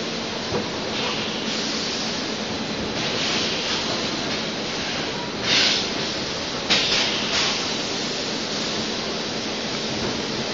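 Extrusion blow molding machine running with a steady noise, cut by several short hisses of compressed air, the loudest about halfway through.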